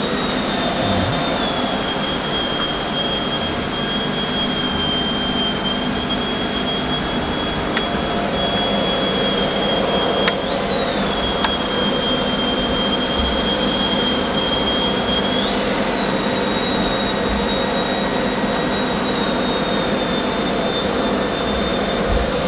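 A machine running steadily: a constant hum with a thin, high whine on top that steps up in pitch twice.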